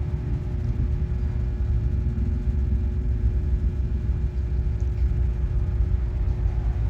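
Steady low rumble with a constant hum, like a motor or fan running without change.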